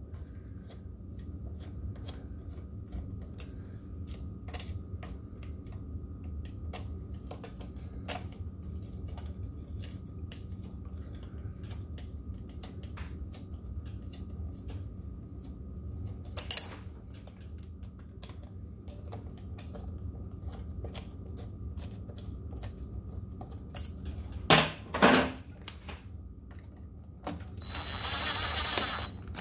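Small metallic clicks and taps as bolts are started by hand with a hex key in the aluminium hub-motor side cover of an electric scooter wheel, with a few louder knocks along the way. Near the end a cordless drill runs for about a second and a half, driving one of the bolts in.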